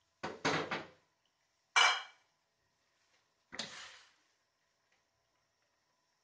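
Cooking utensil knocking and scraping against a metal wok of boiling broccoli and carrots, in three short bursts; the sharpest, about two seconds in, rings briefly.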